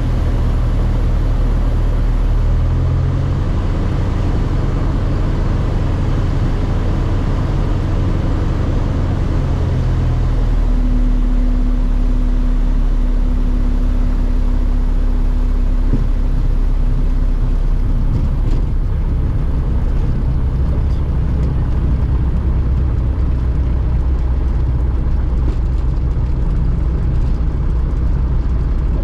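Socata TB9 Tampico's four-cylinder Lycoming engine and propeller running at low power, heard from inside the cockpit through touchdown and the landing roll. The engine note shifts about three seconds in and again about ten seconds in, and a steady tone sounds for several seconds in the middle.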